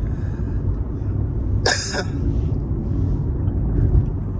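Steady low rumble of a car on the move, with one short cough or throat-clear from a person about halfway through.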